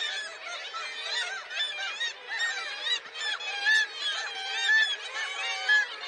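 Black-legged kittiwake colony calling: many rising-and-falling gull calls overlap in a dense chorus, with a few louder close calls in the second half.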